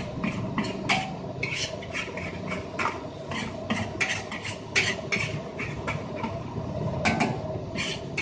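Metal spatula clanking and scraping against a wok while stir-frying fried rice, in quick irregular strokes several times a second, over a steady low rumble.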